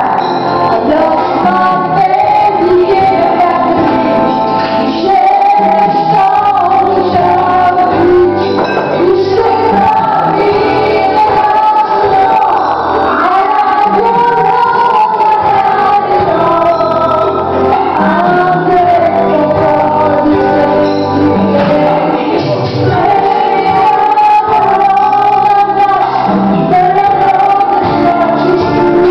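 A woman singing karaoke into a handheld microphone over a backing track.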